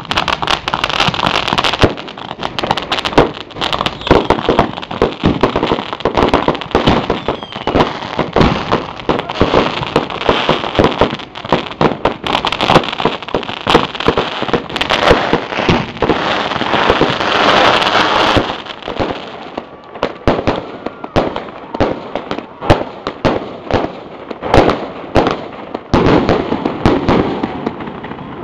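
A fireworks display: ground fountains and cakes firing a dense, rapid barrage of bangs and crackles over a steady hiss. About two-thirds of the way through the hiss drops away and the bangs thin out to scattered single reports.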